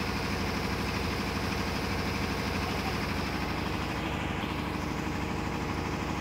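Pneumatic impact wrench rattling as it undoes the damper pulley bolts on a Cummins KT1150 diesel engine's crankshaft, over a steady low drone. The high rattle thins out about four seconds in.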